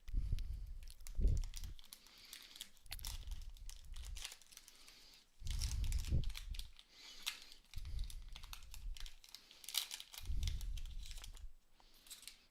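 Foil trading-card pack wrapper crinkling and tearing as it is ripped open, and the cards and wrapper handled, in several bursts of rustling with low thuds.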